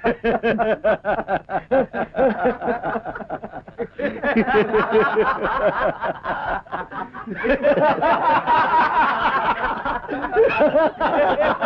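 Several people laughing together in quick, repeated laughs, with more voices overlapping from about two-thirds of the way through.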